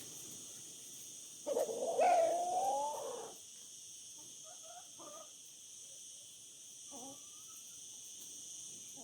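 A rooster crowing once, about a second and a half in, a call of roughly two seconds, followed by a few short, quieter calls. A steady, high insect chirring runs underneath.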